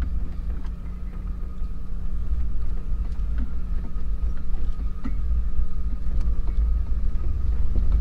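Vehicle engine running with a steady low rumble and a faint steady hum above it.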